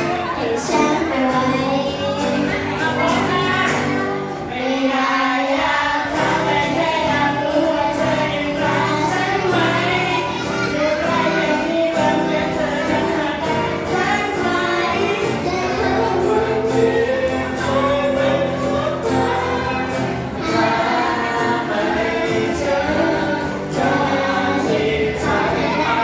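Several singers performing a Thai pop song into microphones over amplified instrumental accompaniment, heard through the hall's PA speakers. The music dips briefly about five seconds in, then carries on.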